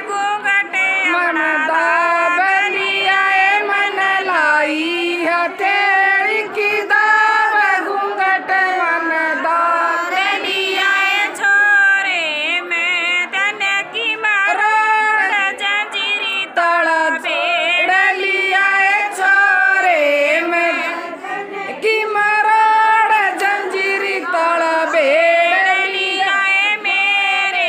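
Women singing a Haryanvi song, one woman's voice carrying the melody in long, unbroken phrases.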